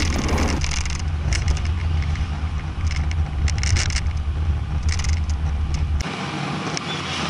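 Cabin noise inside a Hyundai Getz hatchback on the move: a steady, deep engine and road rumble, with short rattles now and then. The deep rumble drops away about six seconds in.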